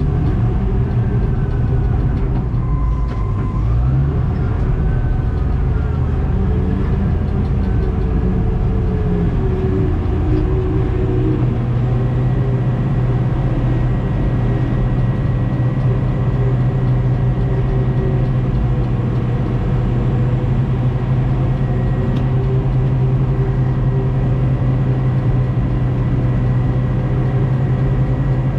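Bulldozer diesel engine running loudly, heard from inside the cab while it pushes material. The engine note rises and falls through the first ten seconds or so, then settles to a steady drone.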